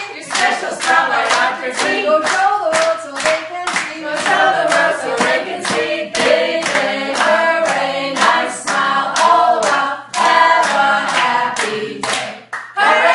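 A group of people singing a short cheer-like song together, clapping along in a steady beat of about two to three claps a second.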